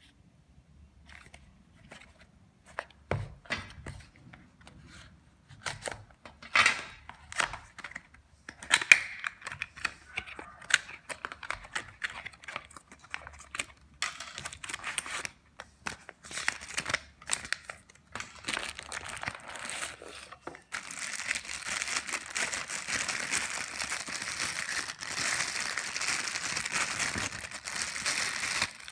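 Unboxing noises: a cardboard box and its flaps handled with scattered clicks, taps and rustles. For the last third, a steady crinkling of a clear plastic bag as the speaker is drawn out of it.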